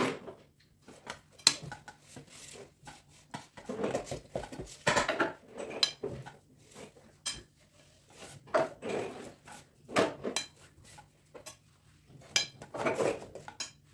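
Metal spoon scraping and clinking against a glass bowl and an aluminium tube cake mould as a mayonnaise vegetable salad is scooped out and packed into the mould. The clinks come in irregular bunches every second or two, with short quiet gaps between.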